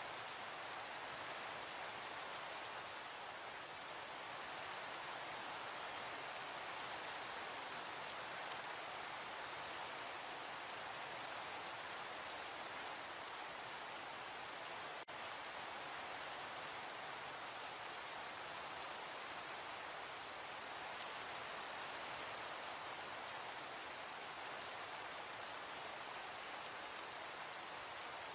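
Steady rain falling, an even hiss without a break, with one momentary dip in level about halfway through.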